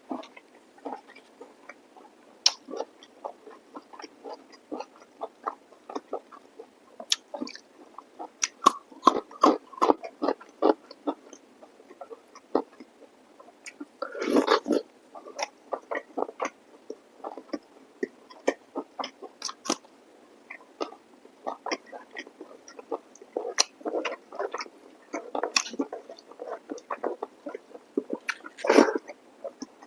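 Close-miked chewing of chicken masala curry with rice: a steady run of short, wet mouth clicks, with two louder bursts, about halfway through and near the end.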